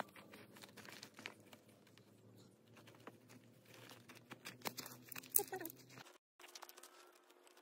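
Tent fabric rustling and crinkling as a tent is pitched, with scattered light clicks and knocks of tent poles and footsteps on dry grass; one sharper knock about five seconds in.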